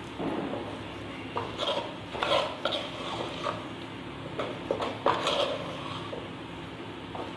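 A spoon stirring and scraping fried bitter gourd pieces around a clay cooking pot, in irregular scrapes and light knocks.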